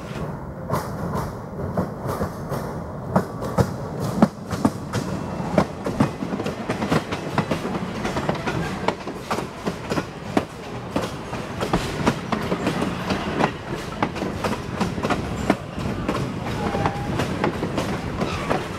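Passenger train cars, a caboose and coaches, rolling past close by, with a steady low rumble and an uneven run of sharp clicks from the wheels passing over rail joints.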